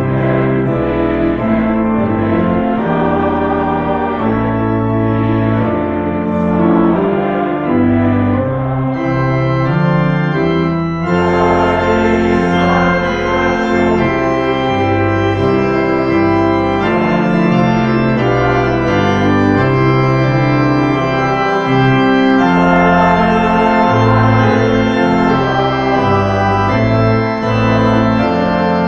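Church pipe organ playing held chords that change every second or so.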